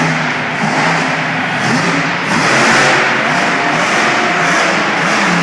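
Monster truck engine revving up and down repeatedly, loud, over a dense haze of noise.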